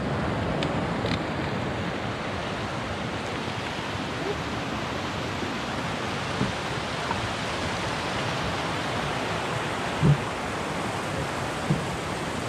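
Mountain stream rushing over rocks close by: a steady hiss of water. A couple of short thumps near the end.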